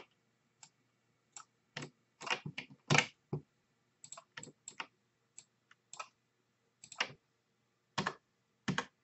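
Computer keyboard keys and mouse buttons clicking in irregular single taps and quick pairs, with a busier run of clicks about two to three seconds in.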